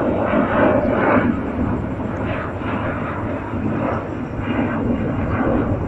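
Jet airliner flying overhead: loud, steady engine noise.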